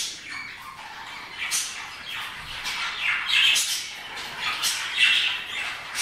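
Several budgerigars chirping and chattering together in a continuous stream of overlapping calls, loudest about three and five seconds in.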